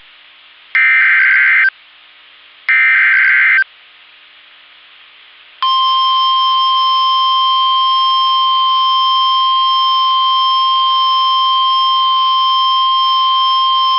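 Emergency Alert System SAME header: two short, screechy digital data bursts about a second each, then about two seconds later a steady single-pitched alert tone that holds unbroken. Together they signal that a weather warning broadcast is about to follow.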